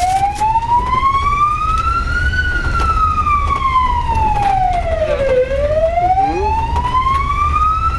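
Ambulance siren in a slow wail, rising for about three seconds and falling for about three, then rising again, heard from inside the moving ambulance over a low engine and road rumble.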